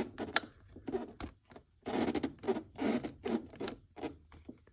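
Irregular rubbing, scraping and sharp clicks of hands working a rubber hose with a plastic clip loose from a car's air intake, with two longer scrapes about two and three seconds in.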